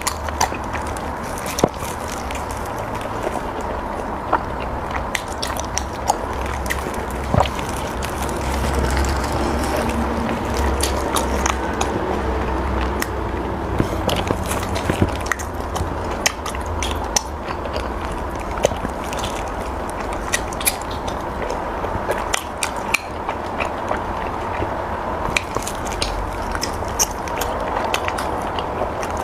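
Close-miked chewing and biting of soft cake, with many short sharp mouth clicks scattered throughout over a steady background hum.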